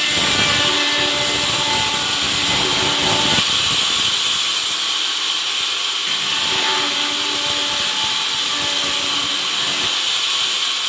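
Vertical band sawmill running steadily on its first test run, a continuous mechanical noise with a hiss. Its tone changes about three and a half seconds in and comes back about six seconds in.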